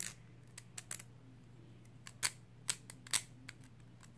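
Hard plastic parts of a Jet Wyvern Beyblade clicking as they are handled and fitted together: a few light clicks in the first second, then three louder, sharper clicks in the second half.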